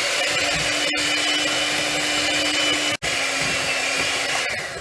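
Electric mixer motor running at a steady speed with a fixed whine, beating icing. It cuts out for an instant about three seconds in, then winds down near the end.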